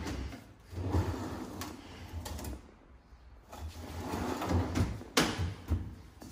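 Metal-sided kitchen drawers being pulled out and pushed shut on their runners: sliding rumbles broken by knocks, the sharpest about five seconds in.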